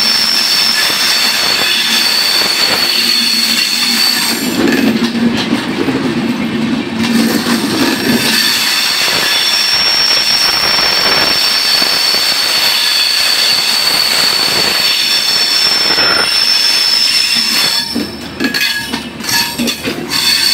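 Dhumketu Express passenger coaches rolling slowly past as the train pulls into the station, with a steady high-pitched squeal. The squeal drops out for a few seconds about five seconds in, and there are a few knocks near the end.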